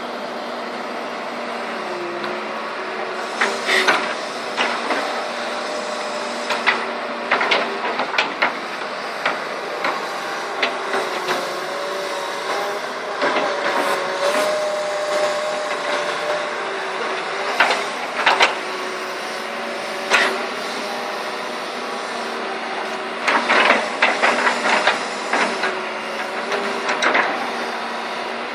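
2007 Doosan excavator running, a steady machine tone shifting in pitch now and then, with many sharp metallic knocks and clanks in clusters, the thickest run near the end.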